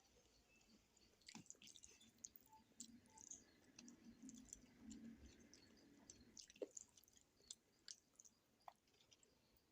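Faint chewing of food, with scattered small wet mouth clicks and smacks.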